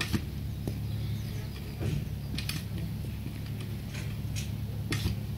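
Metal auto spade (a lever-frame digging fork) working garden soil: a string of sharp clicks and creaks from its pivoting steel frame and tines, over a steady low hum.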